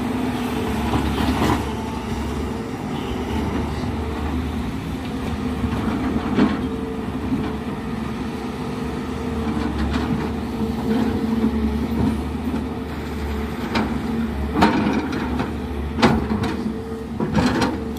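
Excavator engine running steadily, with a few sharp metallic knocks near the end.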